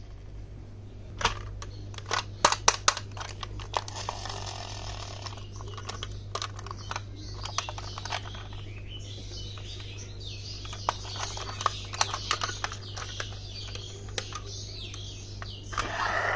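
Pieces rolling and clattering down a HABA wooden marble run: sharp wooden clicks and knocks, loudest between about one and three seconds in, with stretches of steady rolling.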